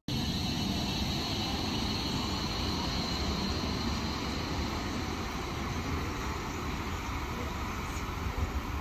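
Karlsruhe light-rail tram running through an underground station: a steady rumble of the car on the rails, with a high whine strongest in the first few seconds.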